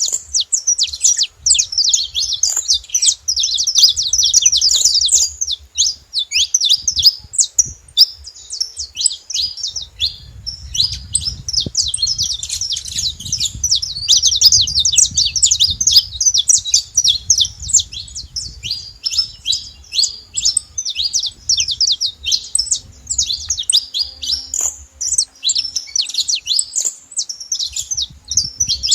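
Saffron finch (canário-da-terra) singing: a fast, continuous run of short high chirps with only brief pauses.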